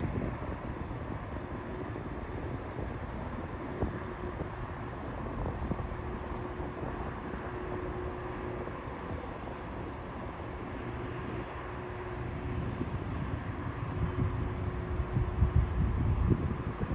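Electric unicycle ride: wind buffets the microphone and the wheel rumbles along the path, with a faint steady hum that comes and goes. The low buffeting grows louder near the end.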